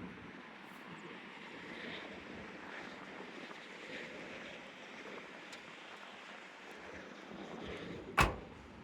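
Steady wind and rain noise with a few light ticks, then one sharp bang about eight seconds in: the 1983 Chevy C10's door being shut against its newly adjusted striker bolt to test the latch.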